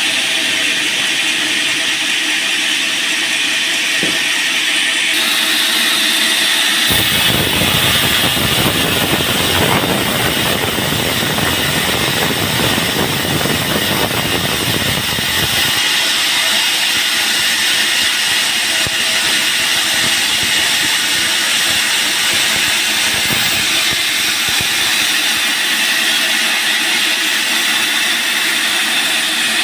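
Band sawmill running with a steady, loud hiss while sawing a teak log. For about nine seconds in the middle a deeper, fuller noise joins in.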